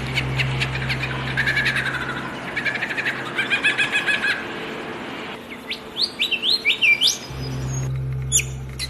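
Several songbirds chirping and twittering in quick runs of notes, with rising whistled calls about six seconds in. A steady low hum sits underneath at the start and again near the end.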